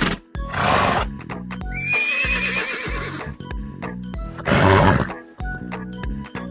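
A horse neighing: a quavering whinny about two seconds in, with two loud short bursts of noise near the first second and near the fifth. Background music with a steady beat plays underneath.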